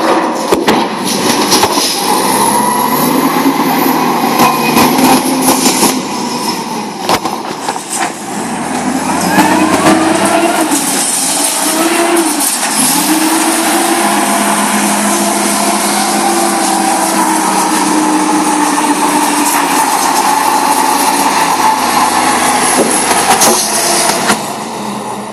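Pettibone rough-terrain forklift's engine running under load, revving up about a third of the way through and then running steadily as the machine drives off. Sharp metal clanks and knocks come in the first several seconds while the steel pipe bundle is lifted out of the railcar.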